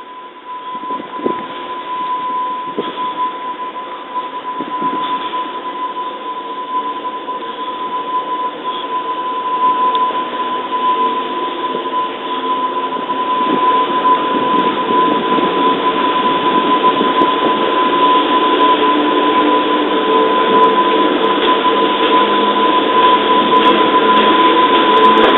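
Electric train running slowly along a station platform, its rumble growing steadily louder, with a steady high-pitched wheel squeal throughout.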